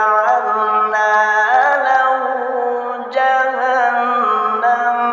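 Male qari reciting the Quran in the melodic mujawwad style, holding long ornamented notes on one breath that slide and step between pitches. There is a short break about three seconds in before the next held phrase.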